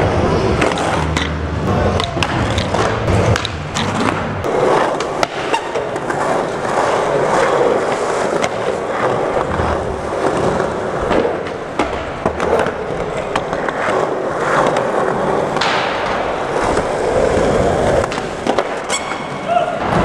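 Skateboard wheels rolling on a smooth concrete floor, with sharp clacks again and again as the board pops and lands tricks.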